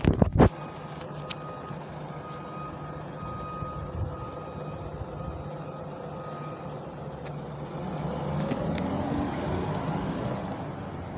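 Bus engine running at a low, steady idle while a reversing alarm beeps in a repeating series. About eight seconds in, the engine revs up with a rising pitch and grows louder as the bus pulls away. A brief loud buffeting on the microphone at the very start.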